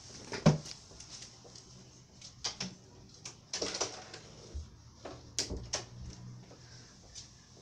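Handling noises: a series of irregular knocks, clicks and rustles as things are moved about by hand, with the sharpest thump about half a second in.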